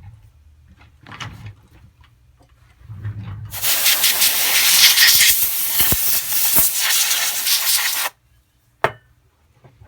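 Pressurised air hissing in one loud, steady blast of about four and a half seconds that starts partway through and cuts off suddenly, with faint handling knocks before it.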